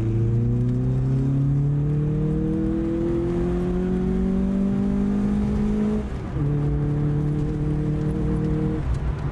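1989 MK2 VW Golf GTI's 8-valve four-cylinder engine pulling up through a gear, its note rising steadily; about six seconds in it dips briefly as it shifts up, then runs on at an even pitch.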